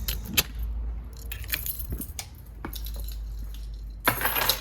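A bunch of keys jangling and clinking in the hand: scattered light clinks, then a louder jangle about four seconds in.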